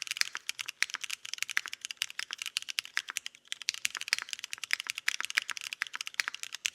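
Fast typing on a custom 60% mechanical keyboard with a solid copper case, using lubed and filmed Cherry Nixie switches, blue keycaps and an aluminium plate, with no case or plate foam. The keystrokes come in a steady, rapid run of sharp clicks.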